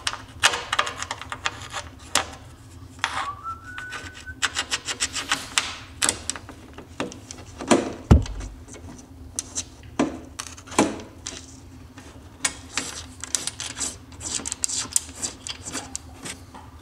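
A heavy-duty rear bumper being handled and fitted onto a snowmobile's rear tunnel: a run of scrapes, rubs and small clicks as the parts and hardware are worked into place, with one heavier knock about eight seconds in. A steady low hum runs underneath.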